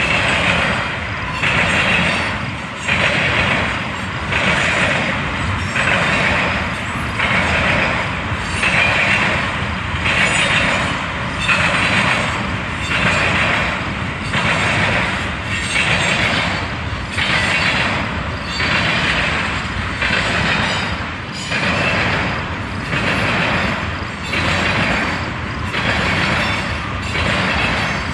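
Freight train of tank cars rolling past, the wheels on the rails swelling and easing in a steady rhythm about every second and a half as each car goes by.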